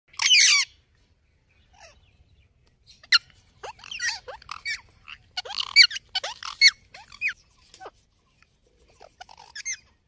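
Indian ringneck parakeets calling: one loud, harsh squawk at the start, then a run of short chattering calls with sliding pitch from about three seconds in, and a couple more near the end.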